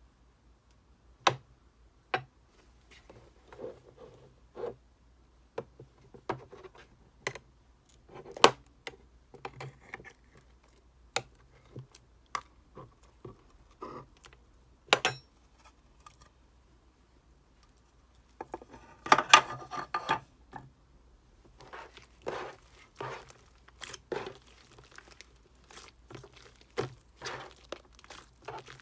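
Clear slime being worked by hand, giving scattered sharp sticky clicks and pops, with a dense, louder cluster about two-thirds of the way in and quicker clicking after it as shaving foam is mixed in.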